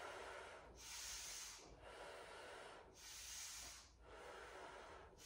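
A woman's slow, deep breathing, faint, with a breathy hiss that swells and fades about every two seconds.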